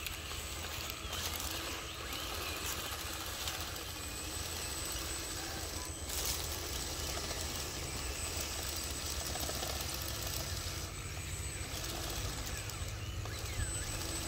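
Radio-controlled Komatsu D65PX model bulldozer running steadily as it crawls on its tracks and pushes a mound of dirt.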